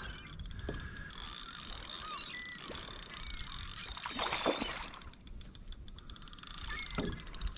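A fishing reel ticking rapidly in two spells, at the start and again from about five seconds in, while a hooked sea bass is played from a kayak, over wind and water lapping on the hull. A brief splash of water about four and a half seconds in.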